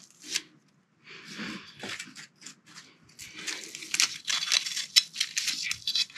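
Velcro battery straps and the battery tray being handled: a run of rasping, tearing and rustling noises with small clicks, broken by a brief pause about half a second in.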